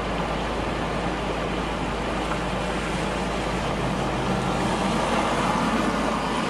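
Steady noise of rain and floodwater running across a road, with a car engine running underneath.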